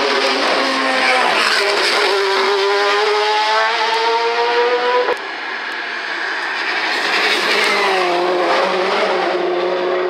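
Mitsubishi Lancer Evolution rally car's engine at full throttle, its pitch climbing steadily through one gear and then cutting off sharply at an upshift about five seconds in. Near the end the revs drop and hold steady as the car slows for a hairpin.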